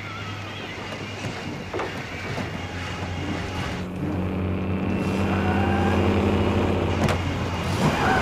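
Heavy truck engine running, a steady low drone that grows louder from about three or four seconds in as the Peterbilt tanker truck approaches. A few faint knocks sound over it.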